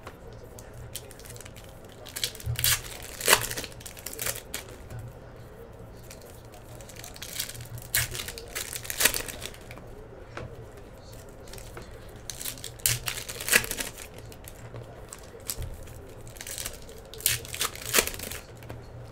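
Trading-card pack wrappers crinkling and tearing as the packs are opened by hand, with the cards inside being handled. The crackles come irregularly throughout, in short clusters.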